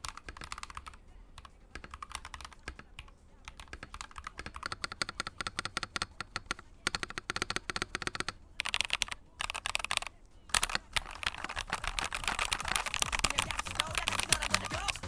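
Typing on a custom LK68 mechanical keyboard fitted with Akko switches: a dense, rapid stream of key clacks with a few short pauses. It grows faster and louder over the last few seconds.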